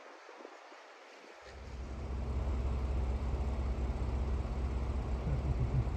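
A light wind hiss, then about a second and a half in a low, steady engine hum comes in and holds, an engine running at an even idle.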